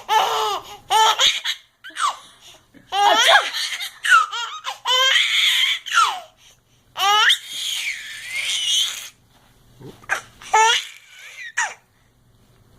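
A baby laughing in repeated high-pitched fits of giggling, each up to a couple of seconds long with short pauses between. The laughs thin out to a few short giggles near the end, then stop.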